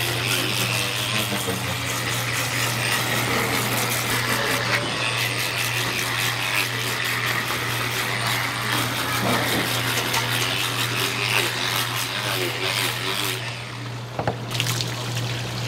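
Handheld electric fish scaler running and scraping the scales off a whole salmon: a dense, rapid scraping over a steady low hum. The scraping drops off for about a second near the end as the tool is lifted, with a couple of knocks.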